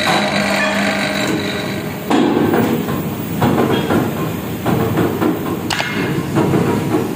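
Mild-steel discs clanking against each other over the running of a flywheel-driven power press, with one sharper metal clank near the end.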